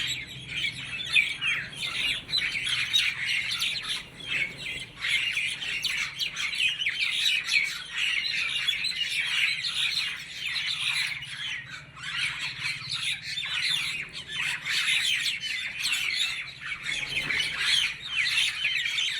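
A flock of birds calling together in a dense, continuous chatter of short chirps and squawks, easing briefly about four and twelve seconds in.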